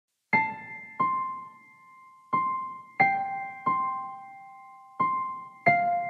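Slow keyboard melody in the style of a piano, with single notes struck one at a time, about seven in all, each left to ring and fade before the next.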